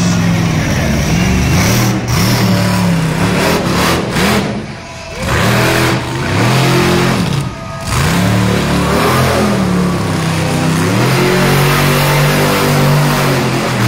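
Monster truck engine revving hard, its pitch climbing and falling again and again as the throttle is worked. It drops off briefly twice, about five and seven and a half seconds in, where the throttle is let off.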